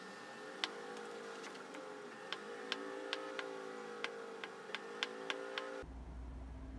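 Kitchen knife cutting down through a block of firm tofu, tapping the plastic cutting board about a dozen times at uneven intervals, over a faint steady hum.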